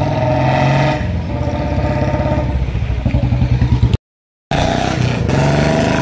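Motorcycle engine running while riding. About four seconds in the sound cuts out for half a second, then a KTM Duke 125's single-cylinder engine pulls away from a standstill.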